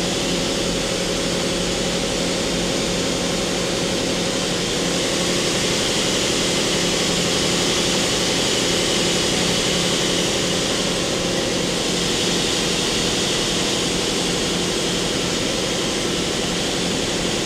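Mori Seiki MT-2000SZ CNC turning/milling center running its main spindle under C-axis control: a steady machine hum with several steady tones, some of which come and go partway through.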